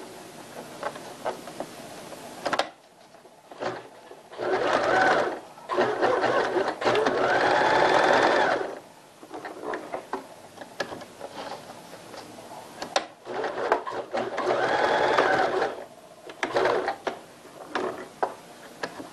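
Domestic electric sewing machine stitching in stop-and-start runs, with two longer, louder runs, one about five seconds in and one about fourteen seconds in, as it sews across the overlapped ends of the waistband elastic.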